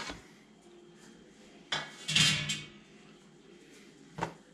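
Short metal clatter of a pizza pan being handled on a wooden counter, about two seconds in, with a small knock before it and another near the end.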